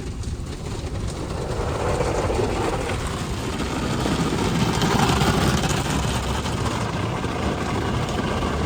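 Soft-touch cloth brushes of a Ryko Softgloss MAXX 5 rollover car wash scrubbing against the car, heard from inside the cabin as a dense rumble. It grows louder about two seconds in and is strongest near the middle.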